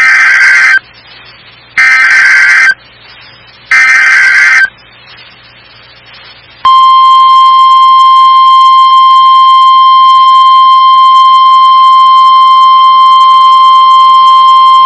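Emergency Alert System SAME header: three bursts of warbling data tones, each about a second long, then after a short pause the single-tone weather-radio attention signal sounds as one long, steady, loud beep. Together they mark the start of an emergency alert, here a tornado emergency warning.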